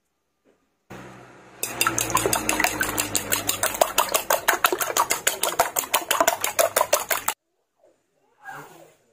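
Raw eggs being beaten with a metal fork in a ceramic bowl: fast, even strokes of the fork clicking against the bowl, about eight a second, that stop suddenly after some five and a half seconds.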